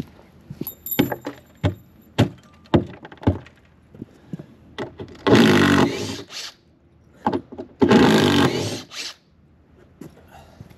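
Carpentry work noise: a run of sharp knocks and thunks of timber and tools, then two loud, harsh scraping or tearing sounds of about a second and a half each.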